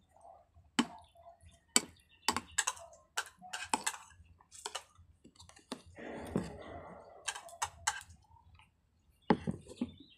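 Metal spoon and fork clinking and scraping against a ceramic plate while eating rice and eggs: about a dozen sharp, irregular clicks, with a longer scrape lasting about a second around six seconds in.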